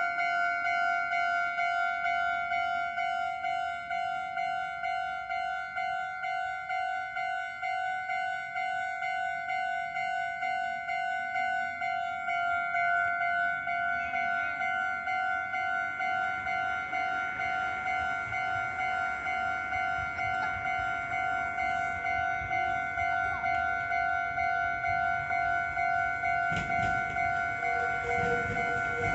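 Japanese electronic level-crossing warning bell ringing in a steady, rapidly repeating ding. From about halfway through, the rumble of an approaching train builds under it and grows loud near the end.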